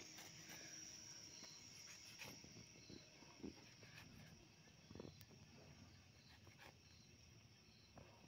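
Near silence: a few faint soft clicks as goat tripe is sliced into small pieces on a curved fixed kitchen blade, over a steady faint hiss.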